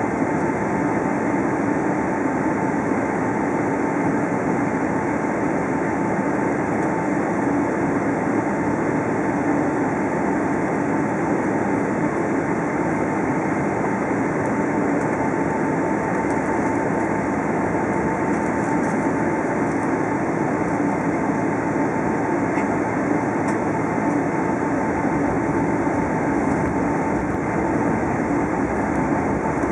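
Cabin noise inside a Boeing 777-300ER taxiing: a steady, even rumble and hiss from its engines and air conditioning, with a constant high tone just under it.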